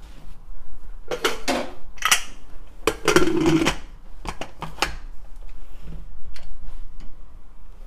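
Aluminium pressure cooker lid being put on and twisted shut: a few metal clanks, then a longer scrape about three seconds in as the lid slides into place, then a few lighter clicks.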